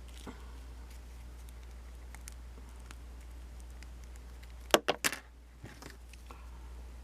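Small plastic clicks and knocks from handling a 6-inch action figure and its blaster accessories, with a quick cluster of three or four sharp clicks just under five seconds in over a steady low hum.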